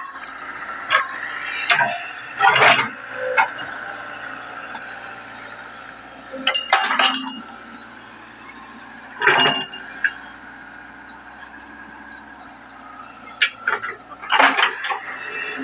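Hitachi 110 excavator working a ditch: the engine runs steadily under a string of irregular clanks, knocks and scrapes from the bucket and boom, some with a brief metallic ring.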